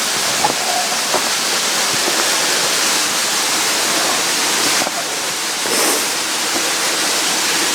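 Steady rushing of a waterfall, with a couple of faint knocks about a second in.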